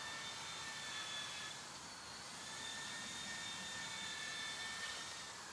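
A machine running with a steady high-pitched whine over a hiss; the whine fades briefly about a second and a half in, then returns.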